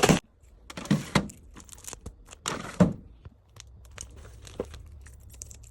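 Plastic packaging crinkling and rustling as an item is handled, in two main bursts about a second in and again around two and a half seconds, followed by a few light ticks.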